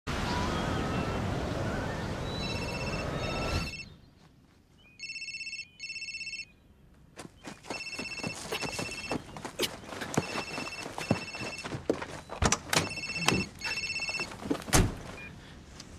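A mobile phone ringing with a repeated ringtone, its rings coming in short pairs over and over, the call not yet answered. A loud rushing noise cuts off suddenly about four seconds in, and knocks and thumps come in among the later rings.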